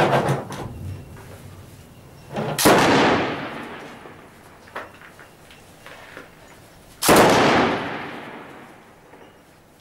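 Three loud single gunshots from a heavy weapon, right at the start, about two and a half seconds in and about seven seconds in, each trailing off in a long echo.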